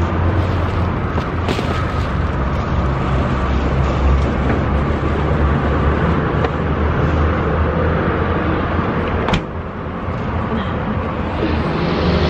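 Steady low rumble of a car driving, heard from inside the cabin, with a sharp click about nine seconds in.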